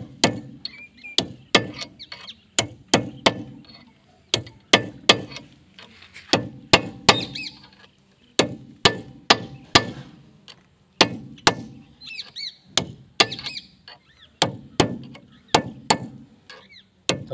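A hammer repeatedly strikes a tool held against a tapered roller bearing, driving it down onto a John Deere tractor's front axle spindle to seat it. The sharp metal-on-metal blows each ring briefly and come about two a second, often in pairs.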